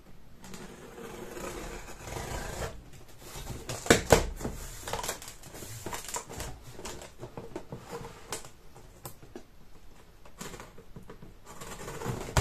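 Packing tape on a cardboard box being slit and torn open with a small sharp tool: scraping, rasping and tearing, with a couple of sharp knocks about four seconds in and another near the end.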